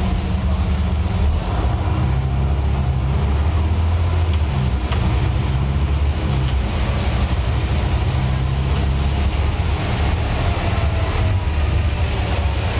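Scania N94UD OmniDekka double-decker bus under way, heard from the upper deck: a heavy, steady low engine drone with a faint whine that glides up in pitch near the end.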